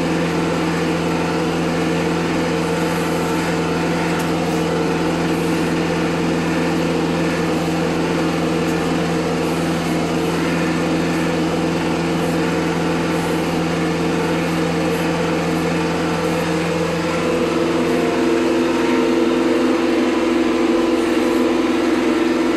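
TYM tractor's diesel engine running steadily while driving a bush hog rotary cutter through grass, heard from the seat. About 17 seconds in the drone changes tone and gets slightly louder.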